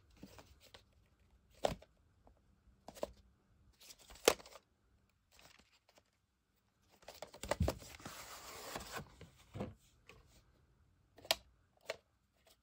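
A VHS tape being handled: scattered knocks and clicks of the cardboard sleeve and plastic cassette, the loudest a little after four seconds in, then a rasping slide of about two seconds as the plastic cassette is drawn out of its cardboard sleeve, followed by a few more clicks.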